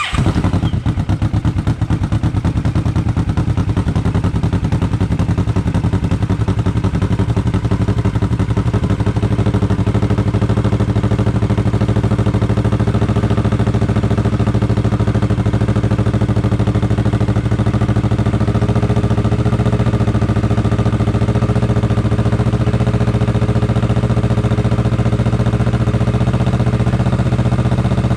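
Kawasaki Vulcan S 650's parallel-twin engine breathing through an Orion full-system aftermarket exhaust. It fires up right at the start and settles into a steady idle.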